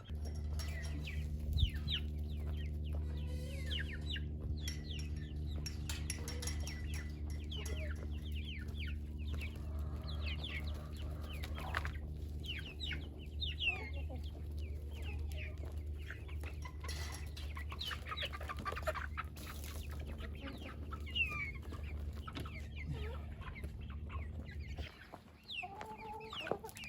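Chickens clucking and young chickens peeping in short high calls throughout, over a steady low mechanical hum that stops near the end.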